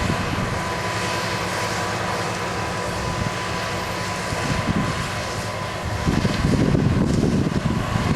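Heavy harvest machinery engine running steadily with a thin high whine over its drone. About six seconds in, wind starts buffeting the microphone in loud gusts.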